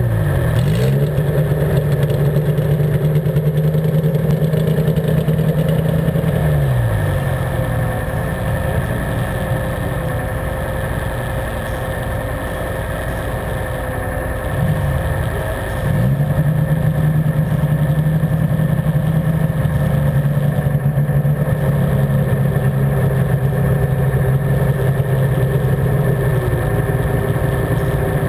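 Garden pulling tractor's engine running steadily at speed. About seven seconds in the revs drop and it runs lower and quieter, then about sixteen seconds in the revs climb back up and hold steady.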